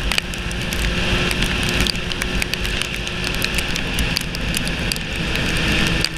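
Motorcycle riding at speed in the rain: a steady rush of wind and engine noise, with raindrops ticking sharply and irregularly against the camera.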